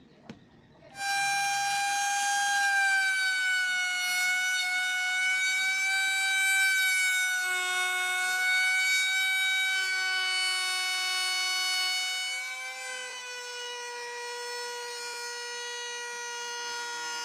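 A power tool's electric motor switched on about a second in, running with a steady high-pitched whine. Near the end it drops to a lower, quieter pitch.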